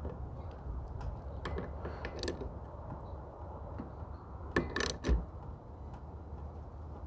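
Small socket ratchet clicking in short runs as it tightens a 13 mm nut, pressing the cast aluminum rear wiper arm down onto its splined shaft. The loudest run of clicks comes about five seconds in.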